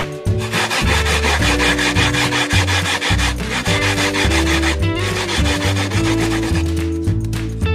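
Fresh coconut flesh being grated by hand on a manual grater: quick, repeated rasping strokes. Background music with a bass line plays underneath.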